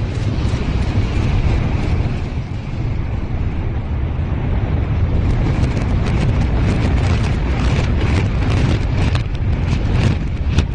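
Implosion demolition of a high-rise building played in reverse: a steady low rumble of collapse and billowing debris, with sharp cracks growing denser toward the end.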